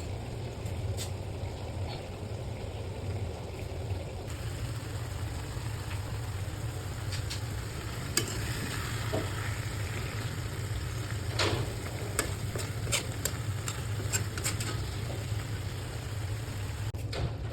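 Fish curry cooking in a pan, a steady sizzle with a utensil stirring and clicking against the pan now and then, over a constant low hum.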